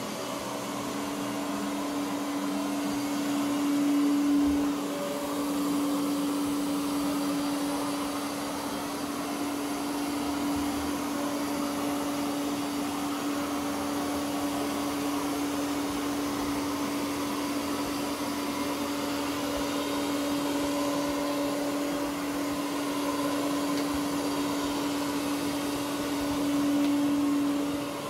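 Ecovacs Deebot OZMO T8+ robot vacuum running as it cleans carpet: a steady motor hum with one held tone over the suction noise, briefly louder about four seconds in and again near the end.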